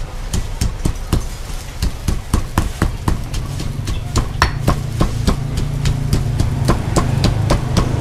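Stone pestle pounding chilies and garlic in a granite mortar: sharp, evenly paced thuds about four times a second. A steady low hum runs underneath and grows stronger about halfway through.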